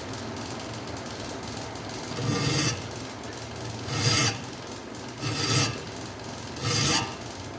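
Flat hand file rasping across the spine of a steel knife blade clamped in a vise, cutting decorative spine filework. Four slow strokes, starting about two seconds in and coming about a second and a half apart.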